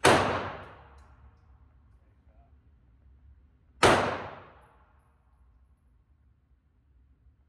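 Two pistol shots about four seconds apart, each a sharp crack followed by a short echoing decay.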